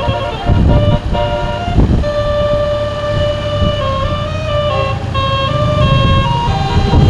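Basuri multi-tone telolet bus horn playing a melody, its notes stepping from one pitch to the next every fraction of a second, over a low rumble.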